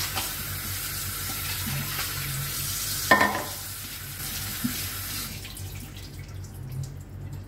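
Kitchen tap running into a sink over raw chicken held in a plastic colander, with one sharp knock about three seconds in. The tap is shut off about five seconds in, leaving quieter handling and dripping.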